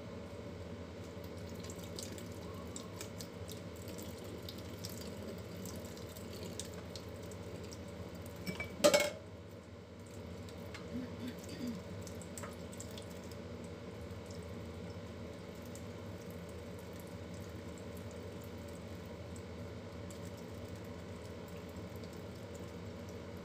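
Kitchen tap running a thin stream of water into a stainless steel sink, a steady splashing, with a single sharp clank about nine seconds in.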